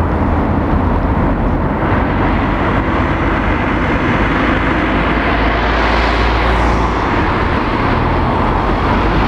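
Road traffic on a roundabout: cars and a van driving past close by, a steady mix of engine and tyre noise.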